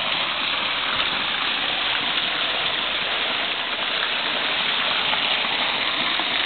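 Fountain water splashing and gushing steadily.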